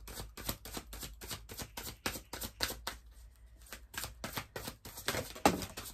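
A large deck of oracle cards being shuffled by hand, cards slapping and sliding from one hand into the other in a quick run of soft strokes, about five a second. The strokes pause briefly around the middle, and one louder stroke comes near the end.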